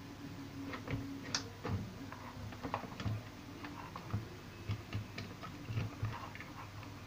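Irregular small clicks and light knocks, a few a second, from hands handling a CRT television's circuit board, wiring and connectors, over a low steady hum.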